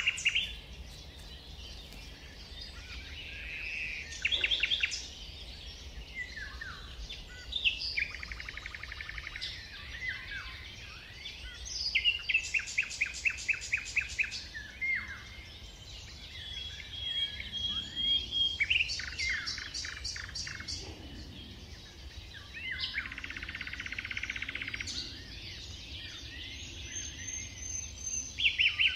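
Woodland songbirds singing, one phrase after another every few seconds: fast trills, runs of quickly repeated notes and short clear whistles, the loudest trill about twelve seconds in.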